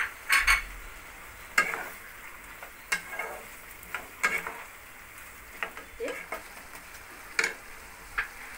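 A wooden spatula stirring chicken, vegetables, cashews and raisins in a nonstick wok, scraping and knocking against the pan about once a second. Under it is a steady low hiss of the food cooking.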